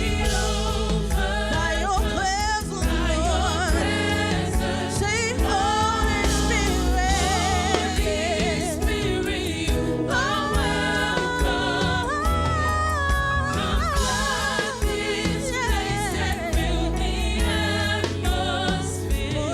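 Gospel worship music: a singer with wide vibrato sings sliding, ad-libbed lines over a sustained band accompaniment.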